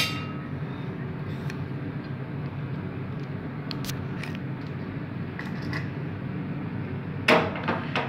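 Steady low hum with a sharp click at the start, then a cluster of loud clicks and knocks about seven seconds in, from handling inside an opened washing machine.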